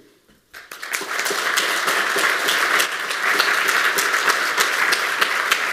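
Audience applauding at the end of a talk, starting about half a second in and quickly building to steady clapping.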